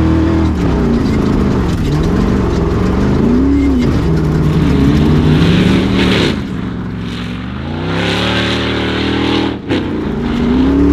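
Engine of a caged off-road prerunner truck revving up and easing off again and again as it is driven hard over a dirt track, its pitch rising and falling several times. There is a hiss of tyres and dirt along with it and a sharp brief drop in engine sound about nine and a half seconds in.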